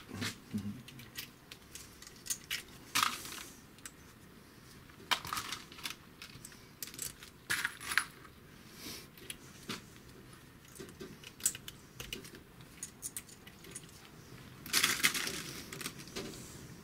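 Small metal hardware clinking: nuts and washers handled and set onto the engine case studs as the crankcase is closed up, with scattered light clicks and a few short rattles, the longest near the end.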